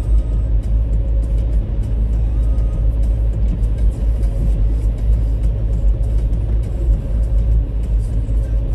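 Steady low rumble of a car driving along an asphalt road, engine and tyre noise heard from inside the cabin, with a faint steady hum above it.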